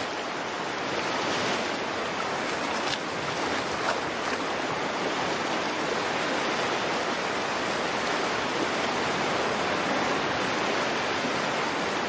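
Rushing stream water, a steady even hiss with no break.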